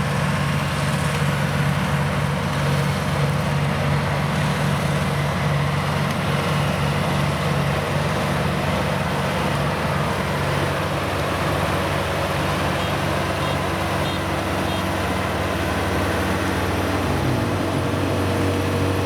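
Kubota combine harvester's diesel engine running steadily as the machine travels. About seventeen seconds in, the engine note drops and changes.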